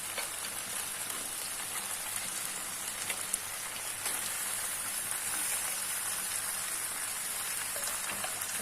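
Chicken and masala sizzling steadily in an oiled kadai, with a few small crackles along the way.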